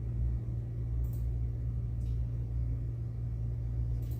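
Steady low hum with a few faint ticks, about one, two and four seconds in.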